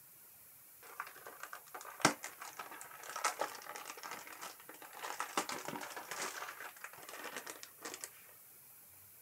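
Packaging crinkling as it is handled and opened, an irregular crackle with small clicks and one sharp click about two seconds in; it starts about a second in and stops about eight seconds in.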